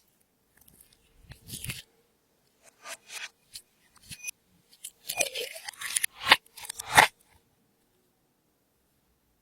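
Clear slime being squeezed and stretched by hand, giving a string of short sticky crackles, pops and clicks at irregular intervals, busiest around the middle. The sounds stop about seven seconds in.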